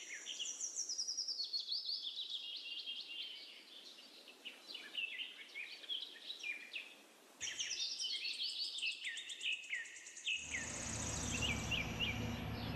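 Small birds chirping busily, many quick high chirps overlapping one another. About ten seconds in, a low steady hum joins them.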